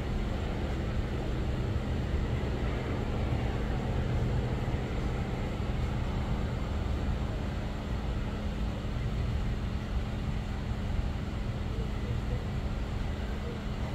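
Idling vehicle engines: a steady low hum that holds unchanged, over a bed of street noise.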